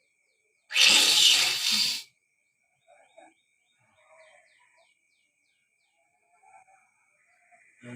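A person forcefully expelling phlegm: one loud, rough, breathy burst lasting about a second and a half, as the gurah treatment brings the mucus out. Faint bird chirps and small scattered sounds follow.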